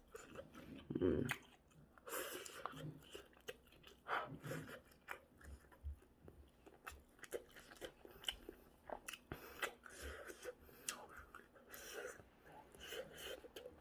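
A person chewing food, with many small clicks and smacks scattered throughout.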